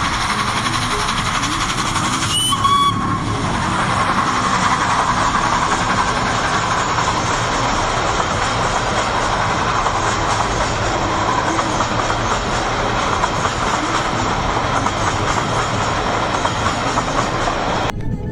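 Steam locomotive hauling a train of coaches past: a steady rushing hiss of steam and running noise, with one short whistle note about two and a half seconds in.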